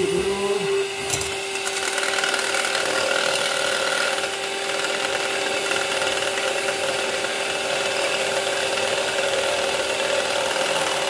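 Handheld electric mixer running steadily, its beaters whirring through egg and oil in a stainless steel bowl as the mixture is beaten into mayonnaise.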